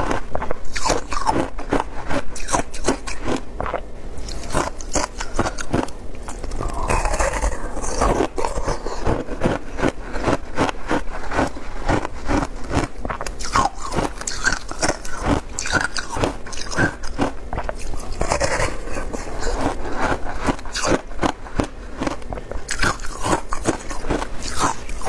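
Close-miked biting and chewing of compacted shaved ice soaked in passion fruit juice: a long, rapid run of crisp crunches, bite after bite.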